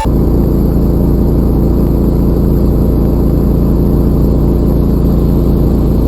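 A motor running steadily at one speed, a loud low hum with a fixed pitch.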